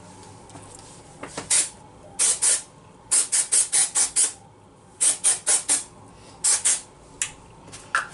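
Colab dry shampoo aerosol can sprayed onto the hair roots in short hissing bursts, about sixteen in all, coming singly and in quick runs of up to six.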